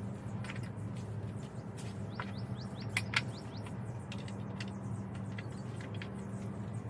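Small birds chirping in short falling notes over a low steady hum. About three seconds in come two sharp wooden knocks as the bench parts are handled.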